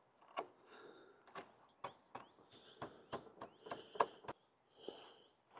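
Kitchen knife chopping fresh parsley on a plastic cutting board: about ten faint, irregular knocks of the blade striking the board.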